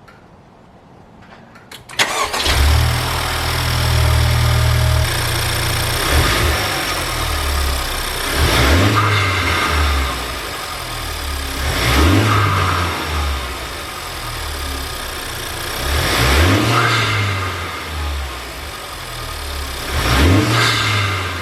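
A 2018 Honda Civic Type R's 2.0-litre turbocharged four-cylinder engine, fitted with a Mishimoto cold air intake, is cold-started after a few faint clicks about two seconds in. It settles to a high, steady fast idle. Then it revs up and falls back four times, about four seconds apart.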